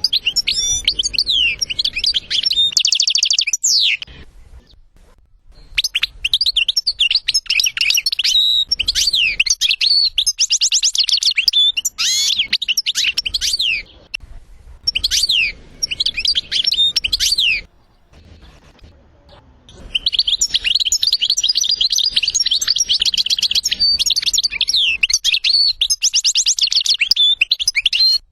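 European goldfinch singing: long phrases of rapid twittering and buzzy trills, broken by a few pauses of one to two seconds.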